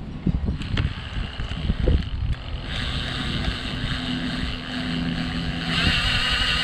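Makita rotary hammer drilling into concrete: a few knocks as the bit is set, then the hammer drill starts about two and a half seconds in with a steady chattering run and low motor hum, growing louder near the end as it bites deeper.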